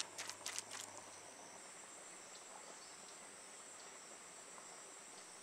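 Faint, steady, high-pitched insect chirring in the background, with a few short rustles or clicks in the first second.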